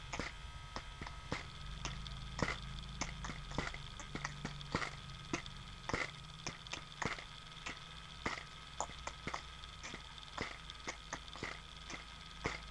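Mouth beatboxing made of quick sharp clicks and pops, several a second in an uneven rhythm, over a low steady hum.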